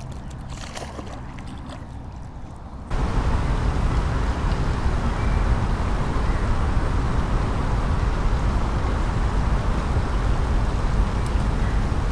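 Light crinkling and rustling of a plastic bag being handled by hand, then, about three seconds in, a sudden switch to a loud, steady rushing noise with a deep rumble.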